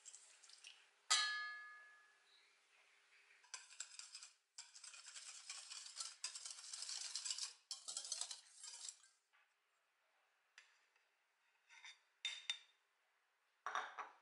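A wire whisk beating a thin egg-and-milk mixture in a stainless steel bowl: a rapid run of clinking strokes lasting about five seconds. Before it comes one sharp metallic clink that rings on briefly. Near the end there are a few light taps and a short shake from a metal flour sieve.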